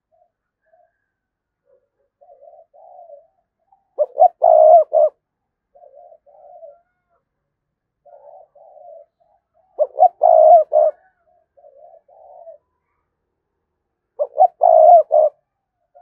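A decoy spotted dove cooing. Three loud phrases of three or four short low coos come about five seconds apart, with softer coos between them. It is the persistent 'gù' call that bird-catchers play to draw wild doves in.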